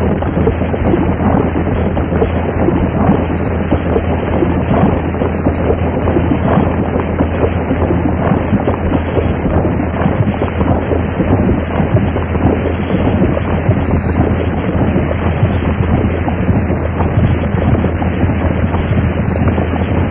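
Harsh noise music: an unbroken, loud wall of dense crackling distortion over a steady low hum.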